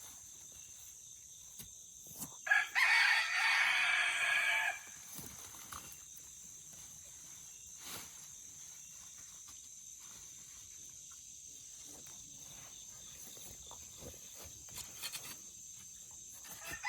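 A rooster crowing once, a loud call of about two seconds a little over two seconds in, followed by faint scattered ticks and scrapes.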